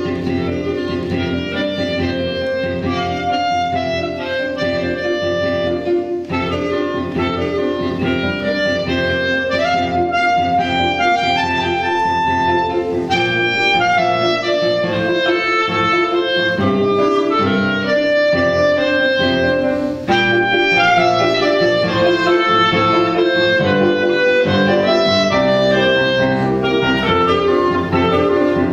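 Clarinet playing a quick, busy melody with grand piano accompaniment.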